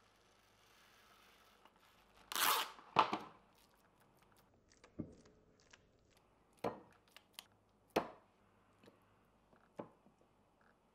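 Plastic cling wrap pulled from its box and torn off against the serrated cutter: two loud rips a little over two seconds in. After that come several short, sharp slaps as hands pat ground-meat patties into shape.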